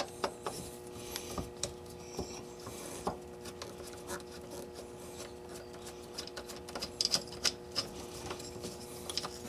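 A screwdriver backing out the small machine screws of a Honda EVAP canister vent solenoid: scattered light clicks, ticks and scrapes of the tool on the screws and plastic, thickest a little after halfway. A steady hum runs beneath.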